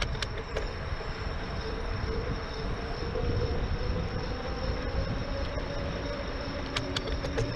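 Wind and road rumble from riding an e-bike, with a faint steady motor whine that rises slightly later on, and a few sharp clicks early on and again near the end.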